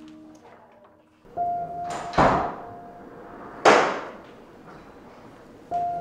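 Two loud, heavy clunks with a reverberant tail: the first swells in a little over two seconds in, the second hits suddenly just before four seconds. A steady electrical hum tone runs under them, starting about a second in.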